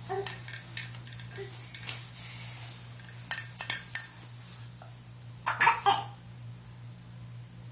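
A baby's short, raspy, breathy noises, somewhere between a laugh and a cough, about five times with the loudest near the end.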